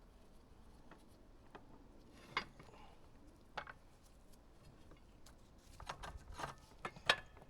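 Scattered light clicks and clinks of metal parts and hand tools being handled during filter servicing, a few isolated ones at first and a quick cluster near the end, the loudest of them right at the end.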